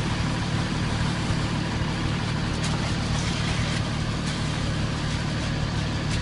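Heavy diesel engine of a concrete mixer truck running steadily at idle, with a few faint scrapes of rakes working wet concrete.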